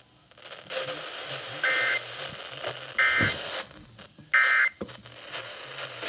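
Three short Emergency Alert System end-of-message data bursts, each a harsh two-tone buzz about a third of a second long, sent about a second and a half apart over an FM broadcast through a Midland weather radio's speaker, over a steady hiss. They signal the end of the tornado warning alert.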